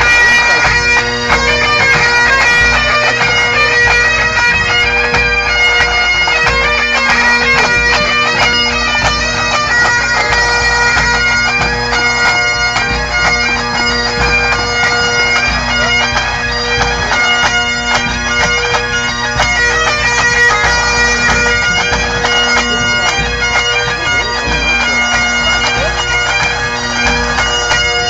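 A pipe band of Great Highland bagpipes and snare drums playing a tune together in a warm-up circle: the pipe drones hold a steady bass under the chanter melody, with sharp drum strokes throughout.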